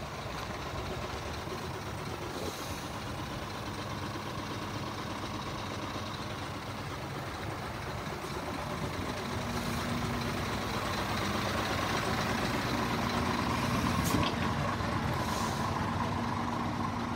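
Scania R450 truck's 13-litre six-cylinder diesel idling steadily, slowly growing louder as it draws nearer. A few short hisses of air can be heard over it.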